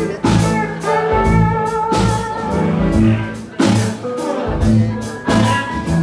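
Live band playing loudly, with electric guitar, organ and bass over a drum kit beating out a strong hit every second or two.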